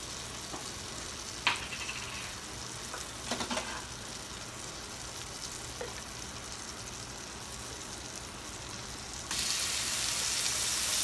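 Butter sizzling in a hot square copper-coloured nonstick frying pan, with a couple of light knocks. About nine seconds in, minced garlic goes into the butter and the sizzle turns suddenly louder and brighter.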